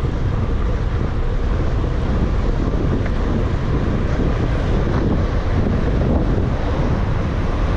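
Wind buffeting the microphone of a camera riding on a moving bicycle: a steady, loud, low rushing noise.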